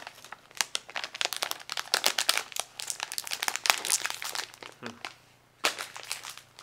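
Metallized plastic inner bag of rice crackers crinkling and crackling as hands pull it open: a dense run of crackles, a short pause about five seconds in, then more crinkling.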